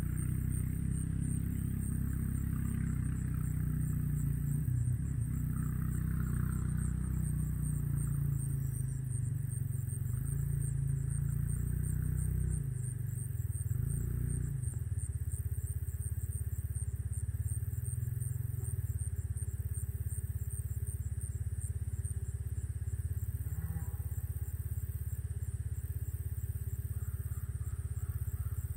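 A low, steady rumble, with a high insect trill pulsing evenly over it.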